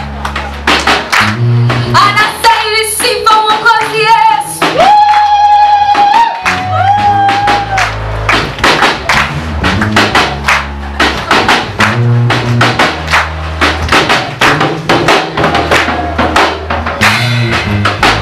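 Upbeat gospel worship song playing, with a steady drum beat and bass line and a few long held melody notes in the middle.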